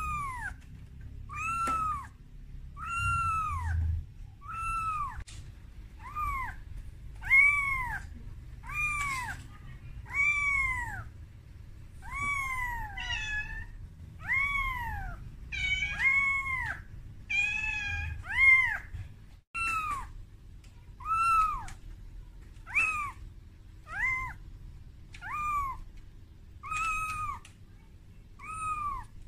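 A very young calico kitten meowing over and over, about once a second, each high cry rising and then falling in pitch: a kitten's distress calls for its mother.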